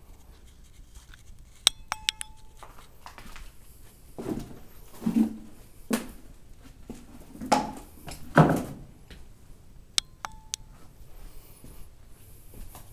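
Sharp metallic clinks, each ringing briefly, in two small clusters about eight seconds apart, with several dull knocks and scuffs in between.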